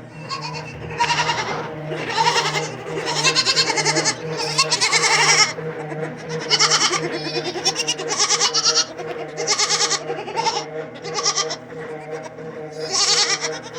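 Several dairy goats bleating over and over, calls overlapping one another, with a steady low hum running underneath.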